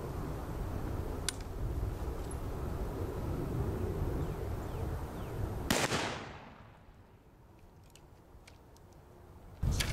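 A single shot from an original Pattern 1853 Enfield rifle-musket, a .577 percussion black-powder muzzle-loader, fired about six seconds in. The report trails off over about a second, and the sound then drops low for a few seconds.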